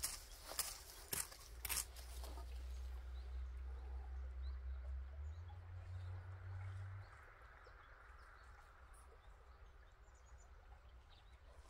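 Quiet outdoor ambience with faint, scattered bird chirps. A few soft scuffs of dry soil being handled come in the first two seconds, and a low hum rises a little in pitch and then stops about seven seconds in.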